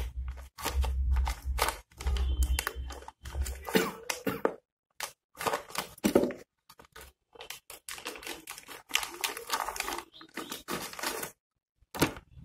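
Clear plastic packet crinkling and tearing as it is opened by hand, a long run of quick, irregular rustles and crackles.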